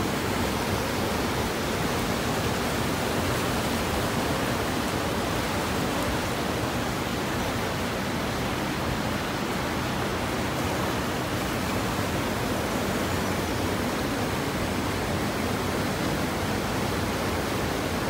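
Steady rush of falling water from a mountain waterfall tumbling over boulders into a pool, an even unbroken hiss-and-roar.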